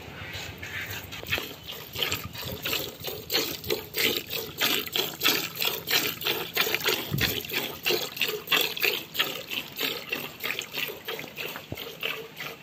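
Cow being milked by hand: squirts of milk from the teats hitting the frothy milk in a plastic bucket, a rhythmic hissing splash about twice a second.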